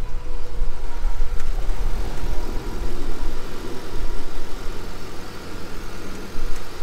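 A car engine running steadily at low speed, with a low rumble and faint steady tones, while the car is winched out of soft sand.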